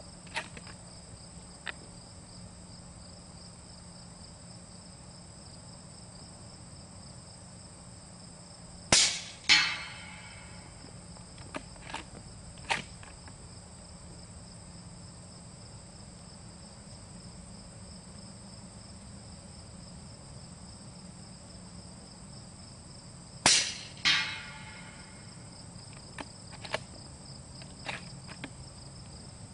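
Two suppressed rifle shots, about 14 seconds apart, from a .30-calibre rifle with an OPS Inc. 3rd Model suppressor firing subsonic handloads. About half a second after each shot comes a ringing hit on a steel target. A few faint clicks fall between the shots, and insects chirp steadily throughout.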